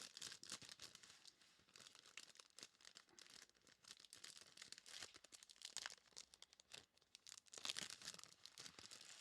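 Faint rustling and crinkling of plastic wrappers and sleeves as trading cards are handled, with small irregular clicks and a slightly louder flurry of crinkles near the end.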